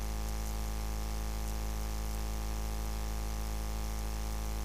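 Steady electrical mains hum and buzz from the audio equipment, unchanging throughout, with a faint hiss above it.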